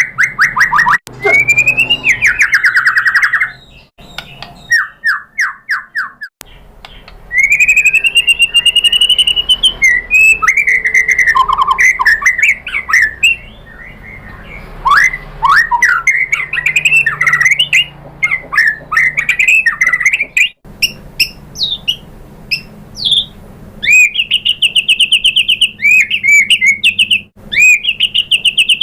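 White-rumped shama (murai batu) singing: fast trills, rattling chatter and clear whistled phrases that glide up and down, in varied bursts. The song breaks off abruptly a few times, as in an edited lure recording.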